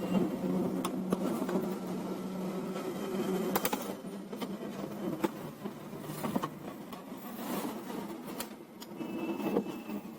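A steady low buzzing hum, with scattered sharp clicks and taps of plastic printer parts being handled.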